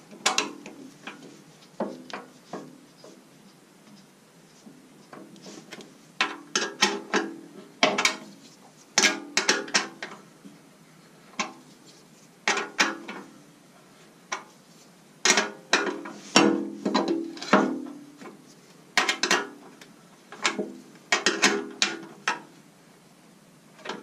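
A metal wrench clicking and clinking against bolts and the steel housing of a wood chipper as the bolts are worked loose. The sound comes in bursts of sharp ticks with short metallic ringing, with pauses between them.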